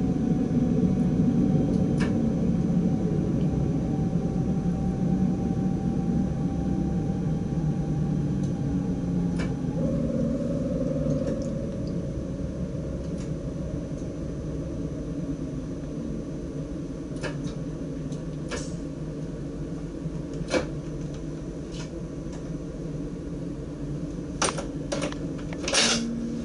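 DDZ double-deck electric train heard from the driver's cab while running: a steady rumble of the running gear with a thin electric motor whine whose pitch steps down about ten seconds in, the whole sound easing off gradually. Several sharp clicks come near the end.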